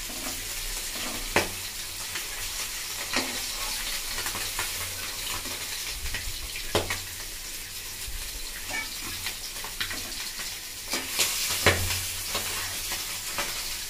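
Small catfish (tangra) frying in hot oil in a metal kadai, a steady sizzle. A spatula knocks and scrapes against the pan a few times, more often near the end, as the fried fish are lifted out.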